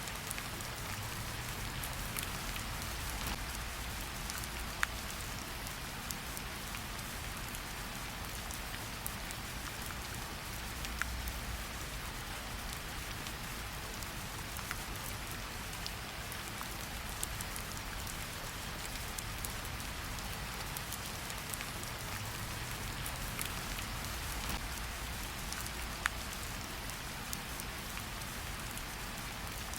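Steady rain, an even hiss with scattered sharper drop taps, a few standing out louder, over a low rumble.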